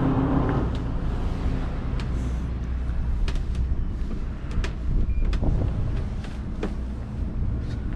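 Steady low hum of a Princess F70 motor yacht's engines and thrusters during slow manoeuvring, with several sharp clicks scattered through.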